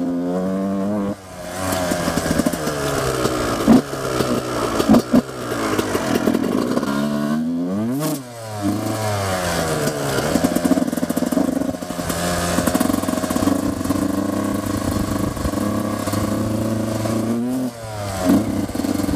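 Dirt bike engine under way, its pitch climbing as the rider accelerates and dropping briefly at each gear change. The throttle is shut about eight seconds in and the revs fall sharply before climbing again, with a few knocks from the bike over the rough track.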